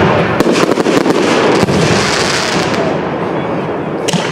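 Aerial fireworks shells bursting overhead: a close run of bangs and crackling with no let-up, a sharp bang just before the end.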